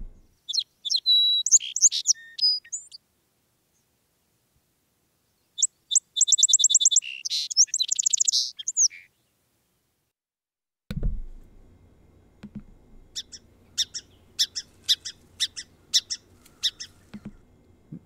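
Recording of a song sparrow singing twice, each song opening with a few clear notes and running into a rapid trill. About eleven seconds in a second recording starts with a click, and the song sparrow gives a steady run of sharp chip calls, its alarm call.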